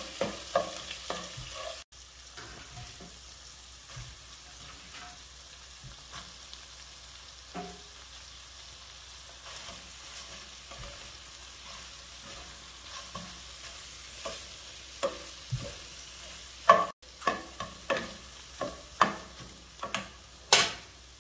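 Fish balls, shrimp, egg and napa cabbage sizzling in a nonstick frying pan while a spatula stirs and knocks against the pan. The sizzle runs quietly through the middle, and the stirring knocks come thick in the first couple of seconds and again over the last few seconds.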